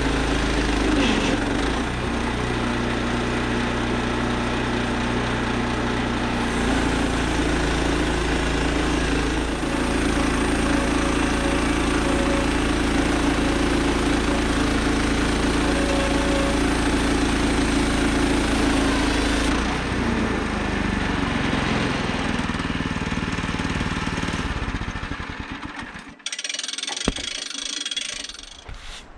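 Woodland Mills HM122 portable bandsaw sawmill running steadily under its gas engine as it saws through an ash log. The sound shifts in tone twice, then dies away and stops a few seconds before the end, followed by a couple of knocks.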